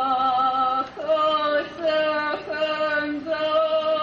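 Voices singing a slow, chant-like melody in held notes, moving to a new note every half second to a second.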